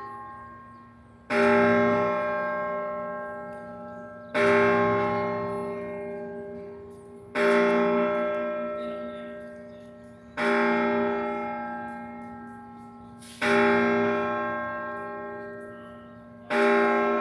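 Independence Hall's tower clock bell, the Centennial Bell, striking noon. Six heavy strokes of the same pitch fall about every three seconds, each left to ring and fade slowly before the next.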